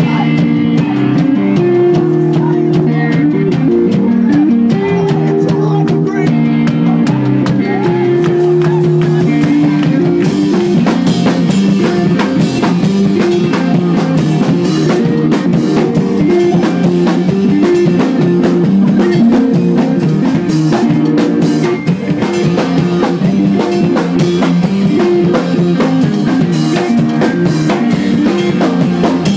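Math rock band playing live: picked guitar lines, then drums come in hard about ten seconds in and the full band plays on loudly.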